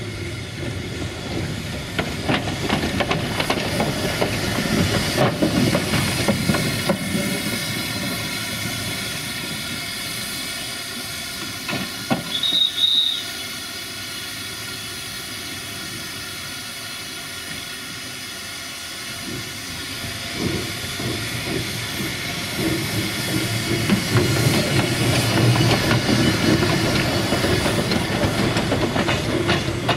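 Narrow-gauge steam tank locomotive 764.469 moving slowly past, with steady steam hiss and the knocking of its running gear and wheels on the rails. Louder as it comes close, quieter in the middle, with a brief high squeal about twelve seconds in.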